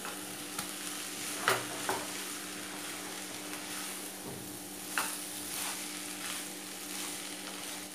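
Boiled noodles and vegetables sizzling in a hot pan while being tossed and stirred with a wooden spatula, with a few light knocks of the spatula against the pan.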